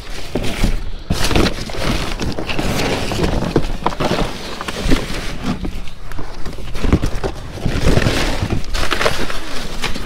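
Rummaging through trash in a dumpster: a dense, irregular run of knocks, rustles and clatters as bags and items are shifted and tossed back.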